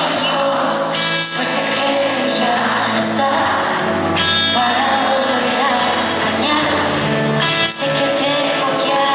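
A live pop song: a female lead singer sings into a microphone over a band with electric guitars.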